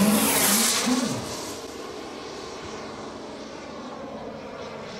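Large-scale radio-controlled Gee Bee R3 model plane's engine passing by, loud for about the first second with its note falling. It then fades away into a steady low background noise.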